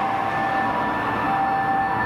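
Japanese ambulance's two-tone siren sounding steadily over traffic noise.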